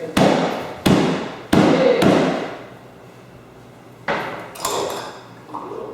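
Three heavy knocks about two-thirds of a second apart, each ringing out briefly, then a fourth knock about four seconds in.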